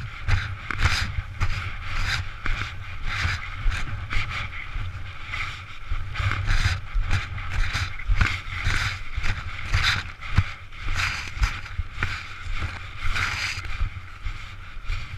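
Wind rumbling on the head-mounted camera's microphone, over irregular close crunching and rustling from footsteps on beach shingle and the red nylon paraglider wing being handled.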